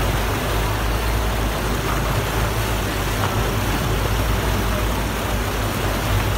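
Motorboat running at speed: a steady low rumble of its engine mixed with the rush of water churning in its wake.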